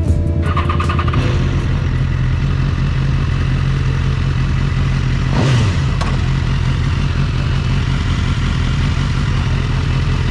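Motorcycle engine running at a steady cruise while riding, with a short whoosh of another vehicle passing about five and a half seconds in.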